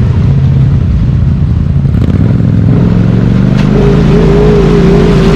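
ATV engine running loud and revving up about two seconds in, then holding high revs with a wavering whine on top.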